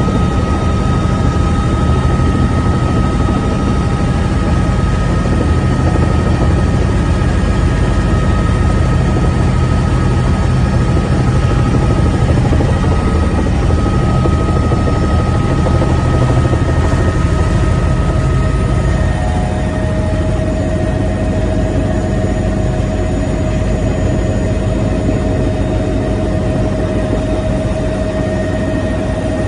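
Cabin noise of a Bell 505 Jet Ranger X helicopter in flight, heard from inside the cockpit. Its single Safran Arrius 2R turboshaft and rotor give a steady low drone under a high turbine whine. About two-thirds of the way through, the whine changes pitch and the noise eases slightly.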